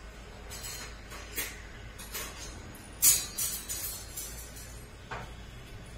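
Background music with a few scattered jingling hits, the loudest about three seconds in, over a low steady hum.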